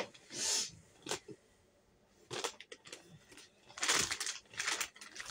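A plastic bag rustling and crinkling in short irregular bursts as things are rummaged through and handled, with a couple of light clicks or knocks.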